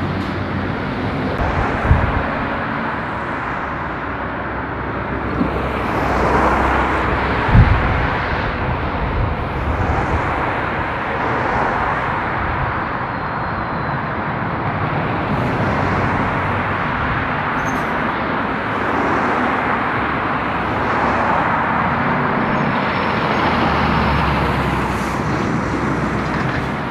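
Heavy diesel lorries passing one after another, among them an eight-wheel tipper and an articulated lorry. Engine and tyre noise swells and fades with each pass. A sharp knock comes about two seconds in and a louder one a few seconds later.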